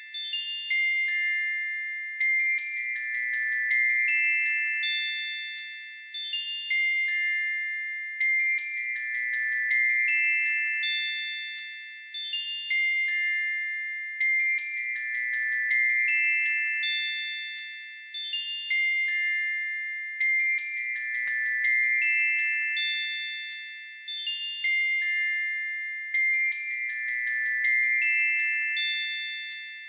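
Background music of high, bell-like tinkling notes in a repeating phrase that comes round about every six seconds.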